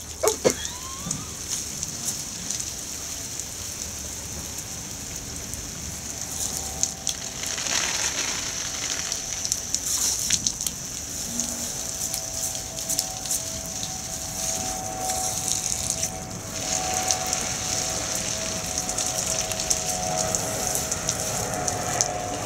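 Water jetting from a garden hose spray gun and splattering on stone paving and leaves: a steady hiss with irregular spatters. From about six seconds in, the steady drone of an aircraft overhead rises beneath it and grows louder toward the end.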